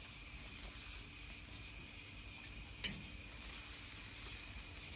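Faint, steady chirring of crickets, with one light tap of metal tongs against the sheet pan about three seconds in.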